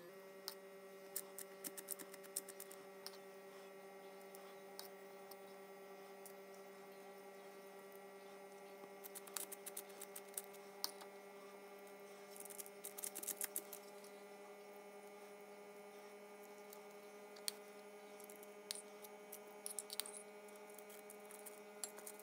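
A steady electrical hum with faint, scattered clicks and light scraping of a metal teaspoon on a bowl and soft dough, as a chopped dill and garlic filling is spooned into the tops of unbaked buns.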